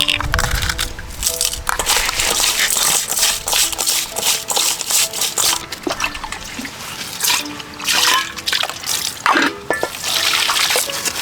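Water splashing and sloshing in irregular bursts over soft background music.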